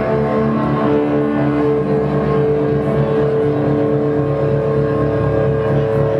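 Rock band playing live at full volume: a dense, droning wall of distorted guitar and held keyboard notes, one steady tone ringing through it.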